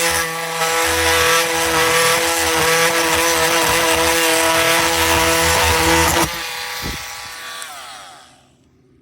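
Oscillating multi-tool with a wood-flooring blade running under load, cutting through half-inch pallet wood with a steady high whine and a rough low chatter. About six seconds in it is switched off, and the whine falls in pitch as the motor winds down to quiet.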